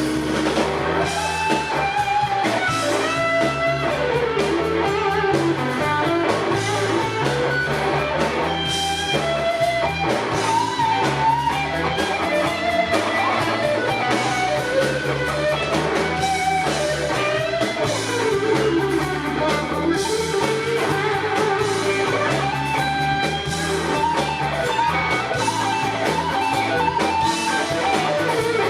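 Live blues-rock band playing an instrumental passage: an electric guitar lead with bent notes over bass and a drum kit.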